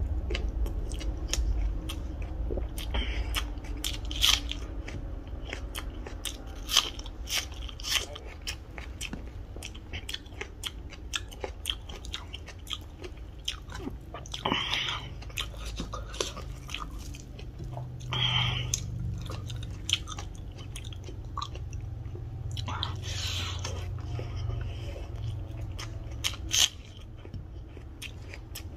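Close-up eating sounds: a person chewing mouthfuls of rice and chicken curry, with frequent wet mouth clicks and smacks, over a low steady hum.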